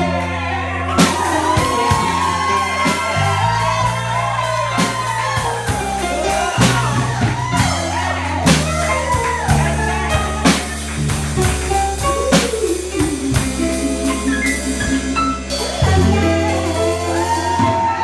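A woman singing live into a microphone over bass and a drum-kit beat with regular cymbal strikes; the drums drop out near the end while the bass and voice carry on.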